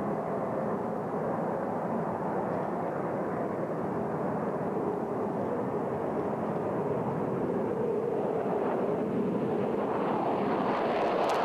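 Saab JAS 39 Gripen fighter's jet engine running as the jet rolls along the runway, a steady jet noise that grows slightly louder near the end.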